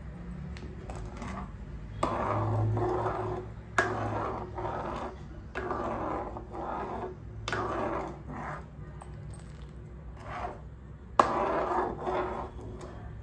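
Steel ladle scraping around a nonstick pan as milk with rabri powder is stirred to thicken it, in repeated strokes of a second or so. The ladle knocks sharply against the pan twice, about four and eleven seconds in.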